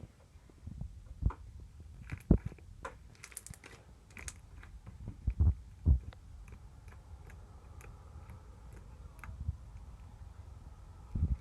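Slime being handled by hand: irregular small clicks and soft thumps, a few louder ones in the first half, then sparser faint ticks.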